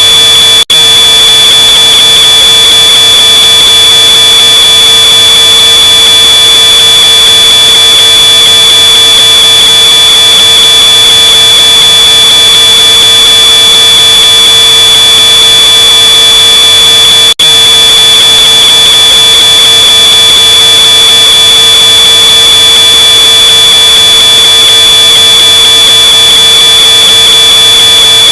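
Smoke alarm sounding one continuous high-pitched tone, boosted until it distorts, with a lower hum beneath it. It cuts out for an instant about a second in and again partway through.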